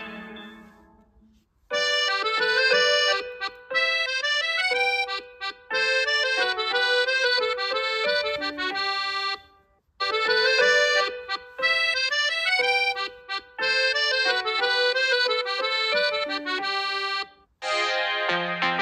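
A Huawei P60 Pro ringtone: a quick, bright melody with chords, played through once and then repeated after a short pause. The previous tone fades out at the start and a different tone begins near the end.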